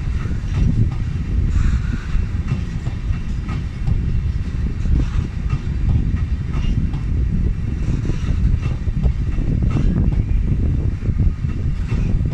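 Train hauled by a Škoda class 182 electric locomotive rolling past, a steady heavy rumble with irregular clicks of wheels over the rails.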